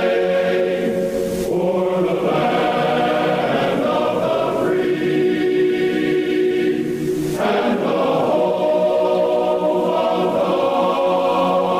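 A choir singing a slow national anthem in long held chords that change every few seconds.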